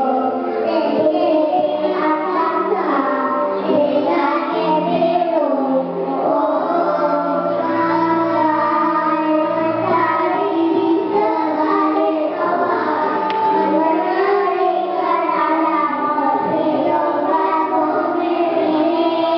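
Young children singing a song together over a recorded music backing track, with the melody moving continuously and no break.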